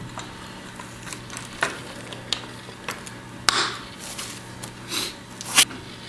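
Scattered light clicks and knocks as a Genie screw-drive opener's plastic carriage is handled and fitted onto the steel rail, the sharpest knock about three and a half seconds in. A low steady hum runs underneath.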